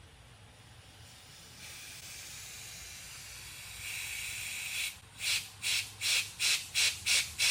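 Compressed-air blow gun clearing old brake fluid out of a motorcycle brake line. A steady hiss grows louder, then from about five seconds in it turns into short puffs, about two or three a second.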